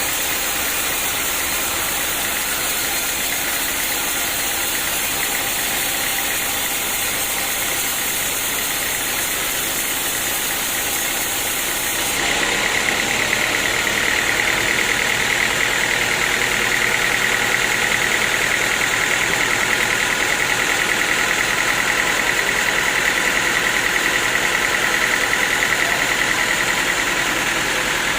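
Sawmill machinery with an engine running steadily. About twelve seconds in, the sound shifts and grows slightly louder, with a steady high whine that holds until near the end.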